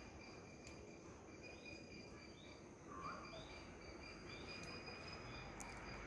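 Faint outdoor ambience: a steady high-pitched insect chorus, with a run of short bird chirps about one and a half to five seconds in and one lower call about three seconds in.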